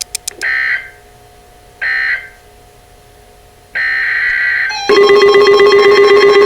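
Emergency Alert System digital data bursts: two short screeching tone bursts about a second and a half apart, the end-of-message signal. A longer data burst follows a few seconds in, then a loud, buzzy, rapidly pulsing alert tone starts near the end.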